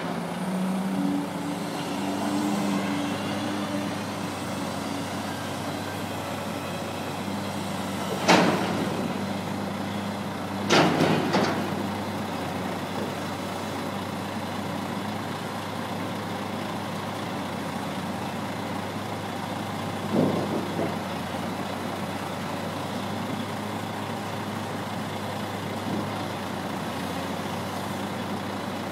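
Heavy diesel engine of a log-handling crane running steadily, with sharp loud knocks of pulpwood logs dropping and striking: once about eight seconds in, several together around eleven seconds, and once more around twenty seconds.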